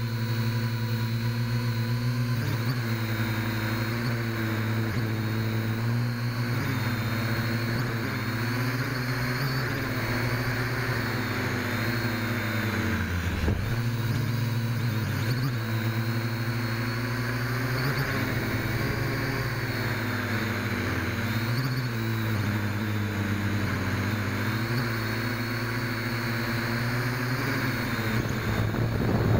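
FPV quadcopter's electric motors and propellers buzzing, the pitch rising and falling as the throttle changes, with brief dips where the throttle is cut.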